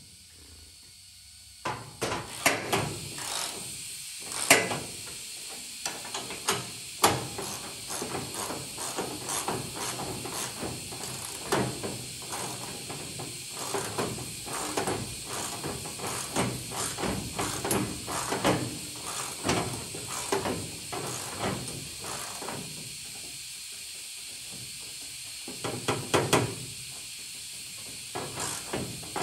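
Irregular metal clicks, clinks and knocks as a hood hinge and its hardware are handled and fitted at the cowl of a 1970 Plymouth AAR 'Cuda body, over a steady hiss. The clatter starts about two seconds in, pauses briefly, then comes back in a louder cluster near the end.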